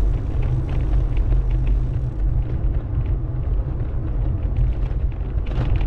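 Steady low wind rumble on the microphone of a camera carried on a moving touring bicycle, mixed with road noise.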